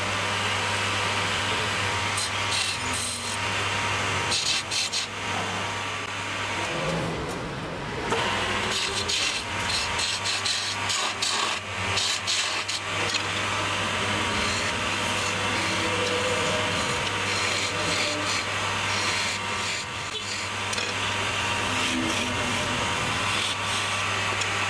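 Wood lathe running with a steady low motor hum while a turning chisel cuts the spinning wood, giving a continuous rough scraping hiss with crackling chips.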